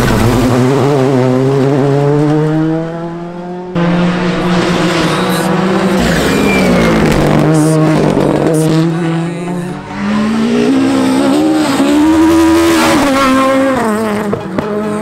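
Rally cars racing past, their engines revving up and falling back through gear changes, with the sound jumping abruptly from one car to the next about four and six seconds in.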